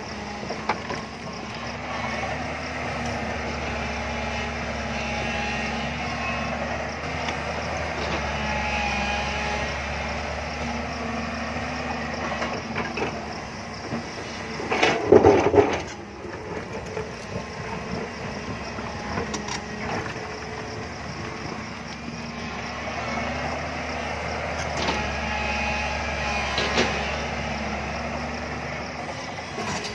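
JCB tracked excavator's diesel engine running steadily, swelling and easing as the boom digs into the hillside and swings. About halfway through comes one loud crunching clatter of the bucket working earth and stone, and a few fainter knocks follow.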